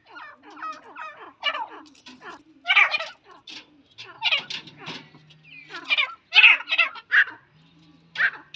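Grey francolins calling: a run of short, harsh calls repeated in quick, irregular bursts, loudest about three seconds and again about six seconds in.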